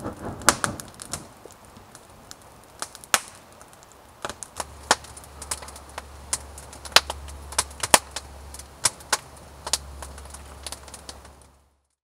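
Wood campfire crackling and popping, with irregular sharp snaps a few times a second. In the first second, the whoosh of a hat fanning air into the flames; from about halfway, a low steady rumble underneath. The sound cuts out just before the end.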